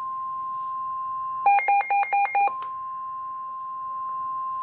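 Weather-radio warning alarm tone: a steady single tone of about 1050 Hz. About a second and a half in, five short, louder beeps at a different pitch briefly cut across it, and then the steady tone resumes. The tone is the attention signal that comes before a broadcast severe weather warning.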